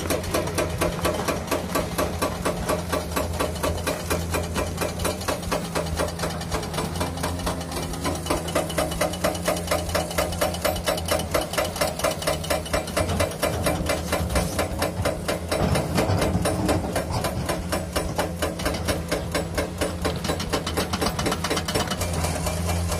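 Hydraulic rock breaker on an excavator hammering rock with rapid, steady blows, the excavator's diesel engine running underneath.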